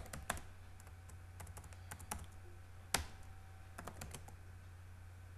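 Computer keyboard keys being pressed at an irregular pace, a dozen or so separate clicks with one sharper keystroke about three seconds in, over a steady low hum.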